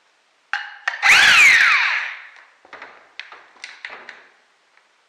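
Handheld power drill run in one short burst on a motorcycle engine's valve cover, its motor whine falling in pitch as it winds down. Then a few light metal clicks and knocks as the cover is handled.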